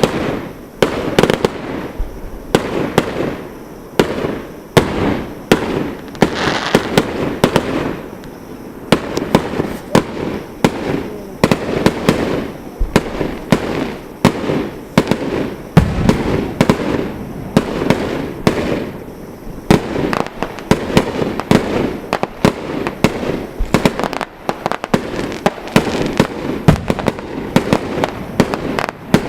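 Fireworks going off in a dense, irregular barrage of bangs and crackles, with a hissing stretch a few seconds in and several deep booms.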